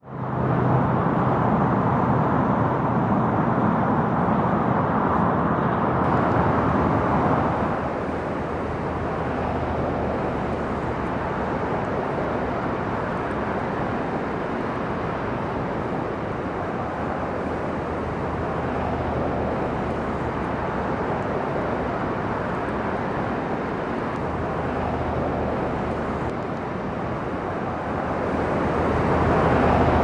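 Steady rushing of water going over Willamette Falls, with a faint low hum underneath. A little louder for the first seven seconds or so and again near the end.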